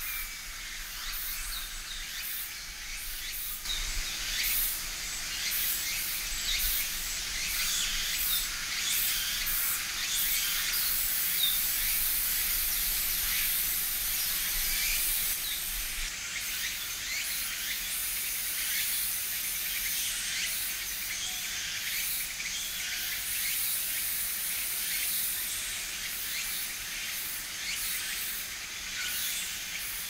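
Steady hiss of shallow river water running over stones, a little louder from about four seconds in, with faint short bird calls scattered through it.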